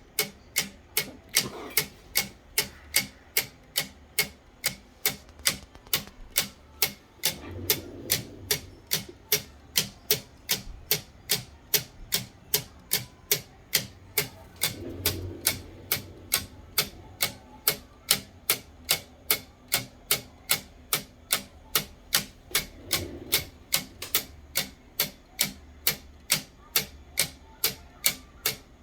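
3D-printed wind-up escapement ticking steadily, about two sharp plastic clicks a second. A few soft low rumbles come in between now and then.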